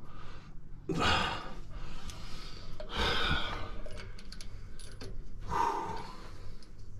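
Light metallic clinks and rattles of tools and metal parts being handled, with brief rustles, over a low steady hum.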